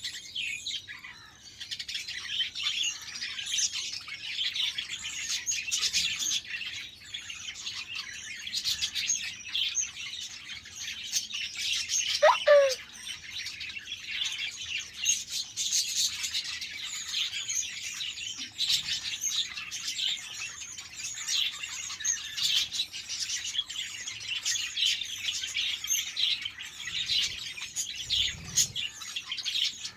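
A flock of budgerigars chirping and chattering continuously, with one louder call sliding down in pitch about halfway through.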